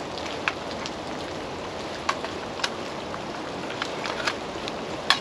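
Steady hiss of pouring rain, with a scattered few sharp taps of drops striking nearby surfaces.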